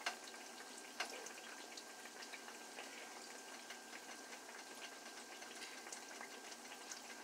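Beignet dough deep-frying in a skillet of hot oil: a faint, steady sizzle with scattered small crackles, and two sharper clicks in the first second or so.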